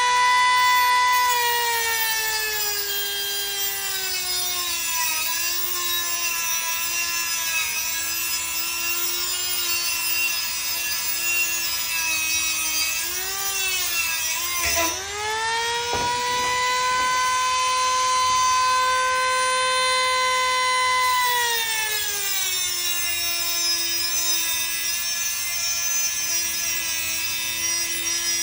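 Dremel rotary tool with an abrasive cut-off wheel grinding through a metal wire rack: a steady high whine that drops in pitch as the wheel bears into the metal, a few seconds in and again after about 22 seconds, and climbs back when the pressure eases, around 15 seconds.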